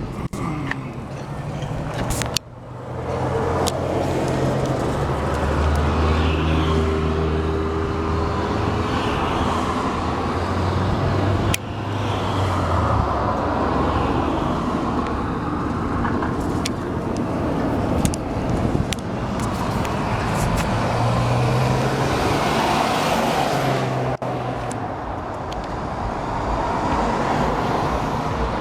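Road traffic passing: vehicle engines running and tyre noise, with a low engine hum strongest in the first half.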